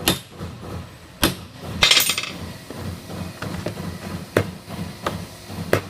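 Hammer striking a punch against the flip lid's metal hinge channel, resetting the divots that hold the new rubber hinge: several separate sharp taps at uneven intervals, the loudest about two seconds in with a brief metallic ring.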